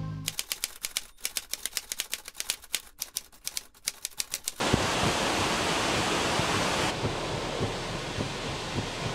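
Rapid typewriter key clicks, about seven a second, for roughly four seconds, then a sudden change to the steady rush of strong wind and heavy rain from a tropical storm.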